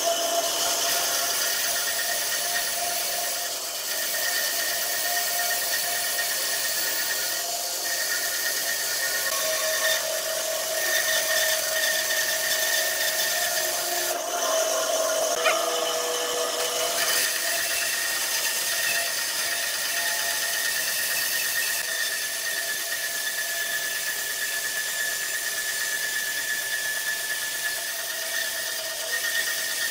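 Bandsaw running and ripping through a bark-covered log, a steady whine over the hiss of the blade in the wood.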